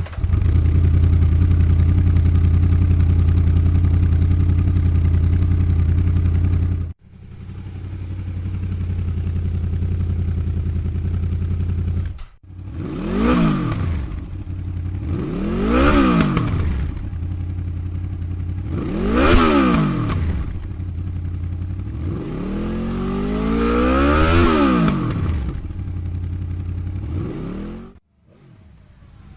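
2006 Honda VFR800's V4 engine idling steadily, then, after a cut, revved four times, each rev rising and falling in pitch, the last one longer.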